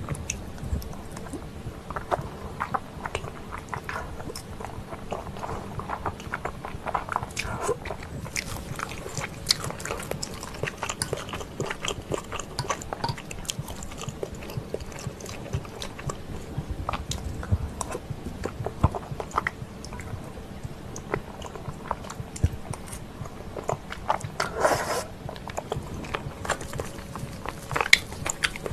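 A person eating creamy pollock roe (myeongran) cream pasta: steady chewing with wet mouth sounds and many small irregular clicks, with a denser, noisier stretch near the end.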